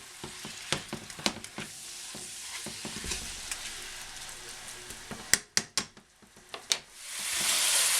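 Pork and cabbage spring-roll filling sizzling in a frying pan as its added water cooks off, stirred with a utensil that clicks against the pan. A few sharp knocks come about five to seven seconds in, then a louder steady hiss rises near the end.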